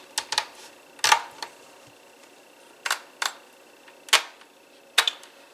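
Hand mixer acting up in a bowl of cream cheese icing: about seven sharp clicks and knocks spread over a few seconds, with a faint steady high whine underneath.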